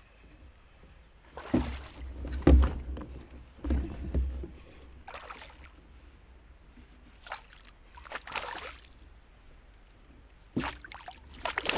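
Water splashing and sloshing around a plastic fishing kayak, in irregular bursts, with a few low knocks on the hull, loudest in the second and third seconds.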